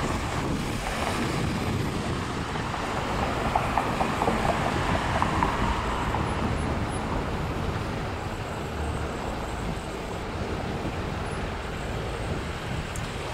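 Road traffic passing through an intersection: steady noise of car engines and tyres.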